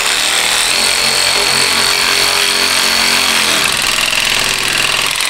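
Cordless power driver running steadily, driving a coarse screw that cuts new threads into the aftermarket radiator. Its motor note drops lower about three and a half seconds in as the screw tightens.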